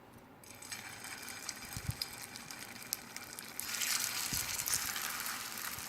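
Aloo tikki (potato patties) shallow-frying in hot oil in a pan: sizzling and crackling start about half a second in and get louder about three and a half seconds in, with a couple of soft low thumps.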